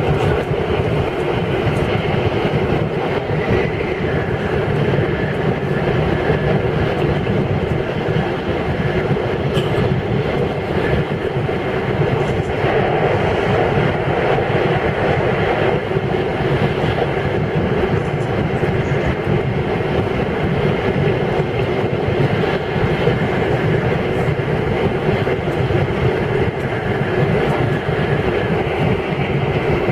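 Steady rumble and rushing noise inside the cabin of a Tokaido Shinkansen bullet train travelling at speed, with a faint steady high whine.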